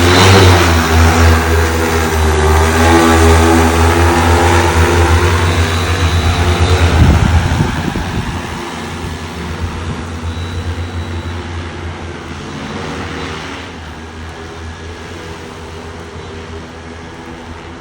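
SuperX 2.0 agricultural spray drone's rotors humming as it flies close by. The sound swells suddenly at the start, stays loud with small shifts in pitch, and fades away after about eight seconds as the drone moves off.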